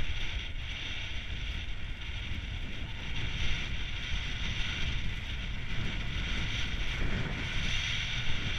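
Steady wind buffeting a GoPro's microphone on an exposed snowy ridge: a low rumble under a constant hiss.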